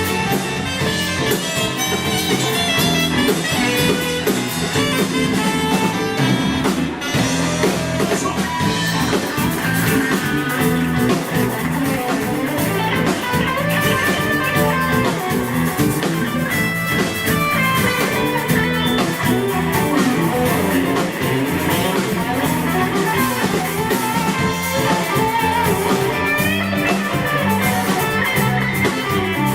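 Live band playing an instrumental passage, with electric guitar lines over bass and drum kit.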